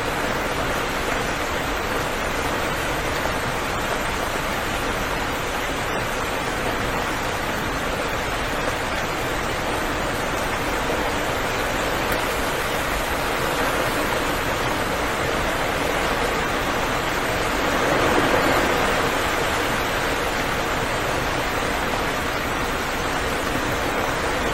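Steady heavy rain falling, an even rushing hiss, swelling briefly louder about three-quarters of the way through.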